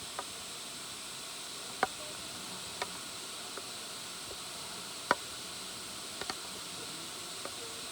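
Waterfall (Manoa Falls) giving a steady rushing hiss, with about seven short, sharp ticks scattered through it.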